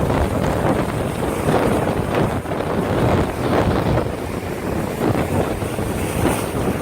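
Storm wind blowing hard across the microphone in a loud, gusting rumble, with storm surf breaking underneath it.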